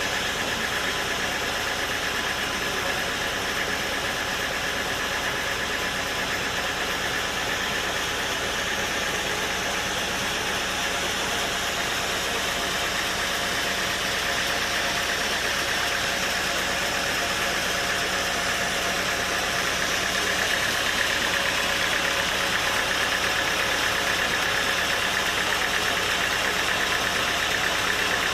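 Sawmill machinery running steadily, a dense mechanical noise with an engine-like hum, growing a little louder in the second half.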